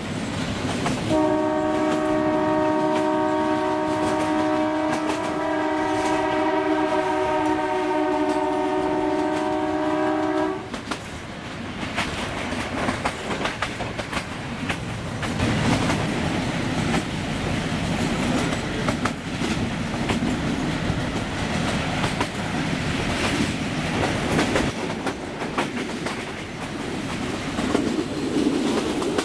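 YDM4 diesel locomotive's horn sounds one long chord-like blast of about nine seconds, starting a second in. After it stops, the metre gauge train's running noise goes on, with the wheels clicking over the rail joints.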